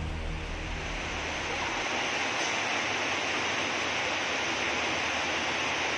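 Steady hiss of rain falling on a wet road and roadside trees.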